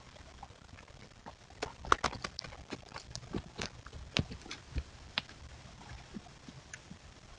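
Irregular clicks and snaps of an animal stepping through woodland undergrowth, picked up by a trail camera's microphone over a low rumble. The clicks bunch together between about a second and a half and five and a half seconds in, then thin out.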